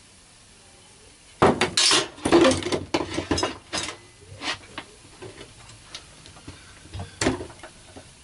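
Metal clinks and knocks from handling tools and air blow gun parts on a workbench. A dense clatter starts about a second and a half in and lasts a couple of seconds, then thins to scattered clicks, with one sharper knock near the end.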